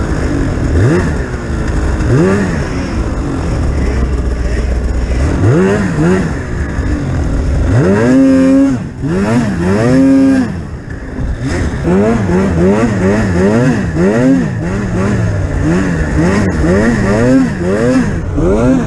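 Polaris Pro RMK 800 snowmobile's two-stroke twin engine revving up and falling back over and over as the throttle is worked. In the second half the revs swing up and down in a quick, regular rhythm, a little more than once a second.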